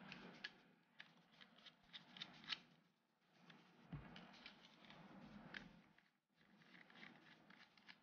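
Faint small clicks and scraping from a 2.5-inch laptop hard drive in its metal caddy being handled while the caddy's screws are taken out.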